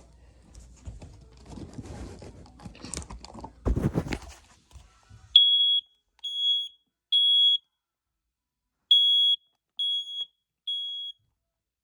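A few seconds of handling and rustling with a knock, then a smoke detector sounds its alarm, real loud: high-pitched beeps in two groups of three, with a pause between groups. This is the temporal-three pattern that marks a fire evacuation signal.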